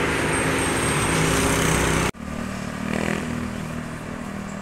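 A road vehicle's engine running steadily, most likely a passing tour bus. About two seconds in the sound cuts off abruptly to quieter road noise with a fainter engine.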